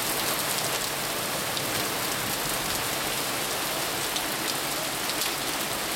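Heavy rain mixed with small hail pelting wet, flooded asphalt: a dense, steady hiss with scattered sharp ticks of stones striking.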